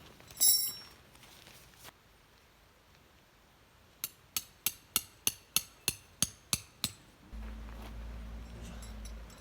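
A hammer driving a metal tent peg: about ten sharp, evenly spaced strikes, roughly three a second, each with a high metallic ring. A single louder ringing metallic clink comes about half a second in, and a low steady hum sets in near the end.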